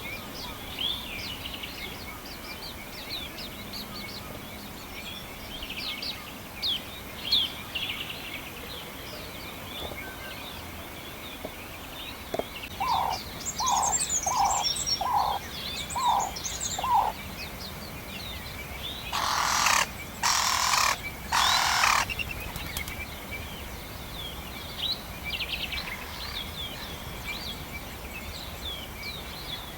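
Small birds chirping and twittering throughout. About halfway through comes a run of six evenly spaced lower notes, followed shortly by three short harsh rasping sounds about a second apart.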